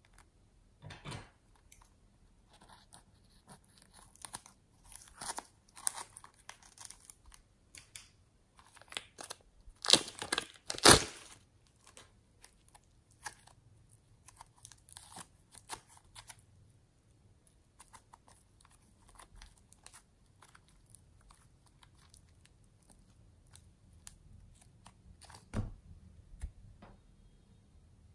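Slime being squeezed from a plastic piping bag and stretched by hand: irregular crackly squishes and plastic crinkles, with two louder crackles about ten seconds in and a sharp click near the end.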